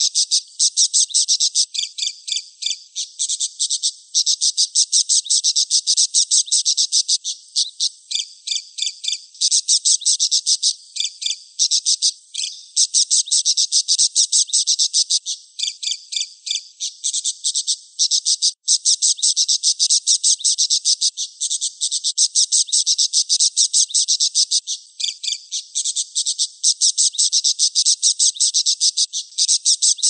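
Budgerigar chattering and warbling: a dense stream of rapid, high-pitched clicks and chirps that breaks off briefly now and then.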